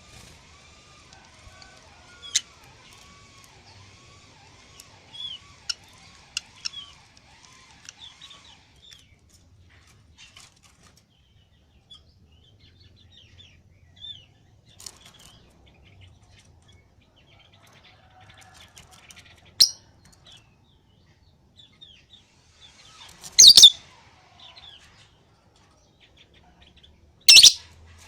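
Lovebird (Agapornis) chirping in scattered short notes, then two loud, short calls near the end, about four seconds apart.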